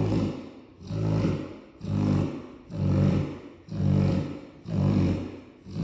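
Cane Corso snoring heavily: deep, rasping snores in a steady rhythm, about one a second, each swelling and fading away.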